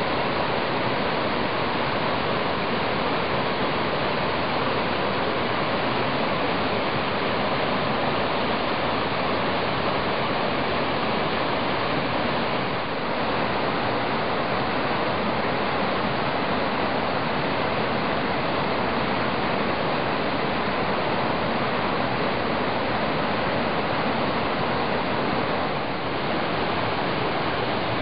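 Creek water rushing and spilling over an ice dam that has built up behind a fallen tree: a steady, unbroken rush of white water.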